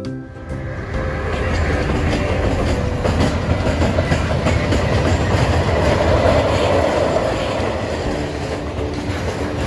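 Freight train of tank and hopper wagons rolling past: a steady rumble of wheels on rails that swells over the first second and is loudest about six seconds in.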